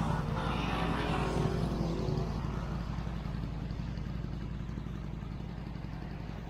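Inline-four motorcycle engine running steadily with a low, even hum, easing slightly quieter over the last few seconds.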